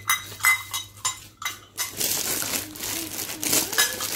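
Stainless steel plates and bowls clinking and ringing as small children knock and handle them. About halfway through, plastic packaging starts rustling and crinkling.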